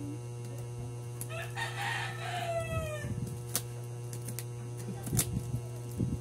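A rooster crows once, a call of about a second and a half that falls in pitch at its end. A few sharp knocks come near the end, over a steady low hum.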